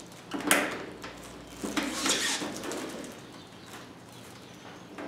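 Plastic handling noise from a paper towel dispenser's housing as hands work its cover: a sharp click about half a second in, then about a second of scraping and rustling, quieter after.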